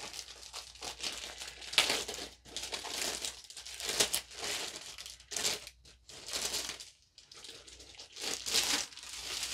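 Clear plastic wrapping crinkling and rustling in the hands in irregular bursts, with a few louder crackles.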